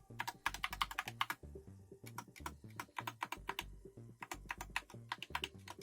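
Typing on a Skyloong SK61 60% mechanical keyboard with Gateron Red optical switches and PBT keycaps: quick, irregular keystroke clicks, several a second.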